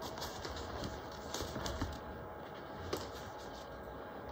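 Faint rustling and a few light ticks of hands folding and pressing waterproof canvas binding over a seam, the loudest tick nearly three seconds in.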